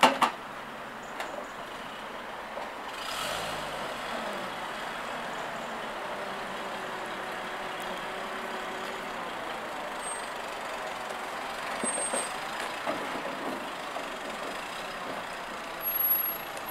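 Bedford QL truck's six-cylinder petrol engine running under load at low speed as the truck climbs the loading ramps and creeps along a low-loader trailer bed. A sharp clank comes right at the start, and the engine rises a little after about three seconds.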